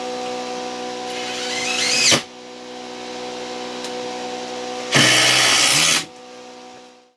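Cordless drill driving screws into 2x4 framing lumber. The motor whine grows louder as a screw sinks in and stops about two seconds in. It then runs again, with a louder stretch around five seconds in, and fades out near the end.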